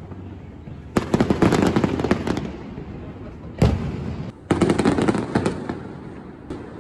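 Aerial fireworks display: about a second in, a dense run of rapid crackling pops lasting over a second, then a single loud bang a little past halfway, followed by another stretch of crackling.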